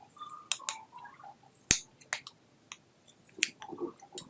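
Spoon mixing a sticky paste of turmeric, grated jaggery and ghee in a small bowl: irregular sharp clicks of the spoon against the bowl with soft squishing in between.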